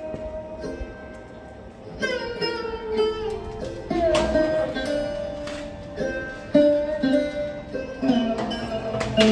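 Instrumental background music in an Indian style, led by a plucked string instrument playing a melody of ringing notes, some of which slide in pitch.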